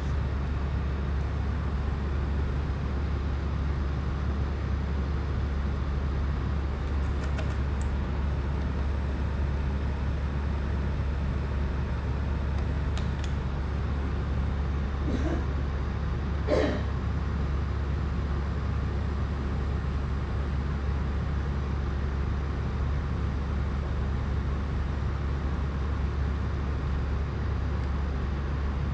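Steady low rumbling background noise with no changes in level, with a few faint ticks and one short, slightly louder tap about sixteen seconds in.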